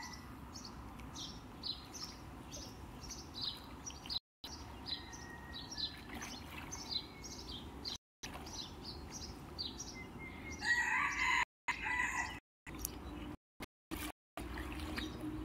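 A rooster crowing once about ten seconds in, over a small bird's short high chirps repeating about twice a second. The sound drops out briefly several times.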